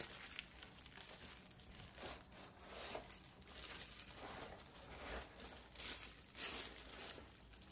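Plastic wrapping crinkling and a cardboard box rustling as plastic-wrapped microphone-stand parts are slid out of the box by hand, in irregular faint rustles with a louder patch about six seconds in.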